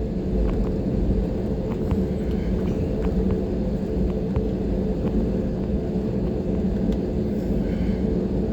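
Airliner cabin noise just after landing: a steady low rumble with the even hum of the jet engines running at low power, and a few light clicks and rattles.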